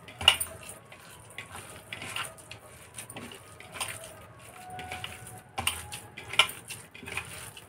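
A hand kneading minced chicken mixed with spices in a glass bowl: soft squishing with irregular clicks and taps, a few sharper ones just after the start and again about three-quarters of the way through.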